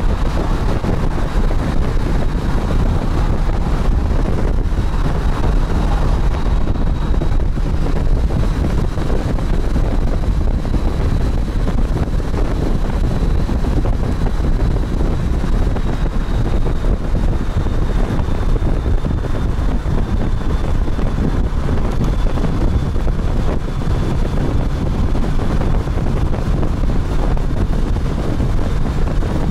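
Steady heavy wind rush on the microphone of a camera on a moving motorcycle, with a faint, steady high whine.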